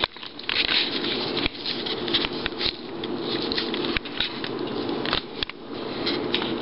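Handling noise of a handheld camera being held and moved: steady rustling on the microphone with scattered sharp clicks.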